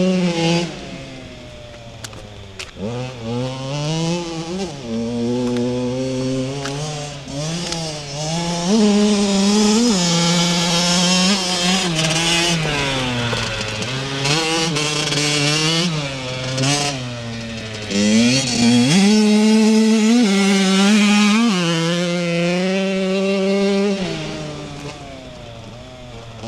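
Kawasaki KX85 two-stroke single-cylinder motocross engine revving up and down again and again as the bike rides, loudest around the middle and fading as it moves away near the end. The engine is being run in.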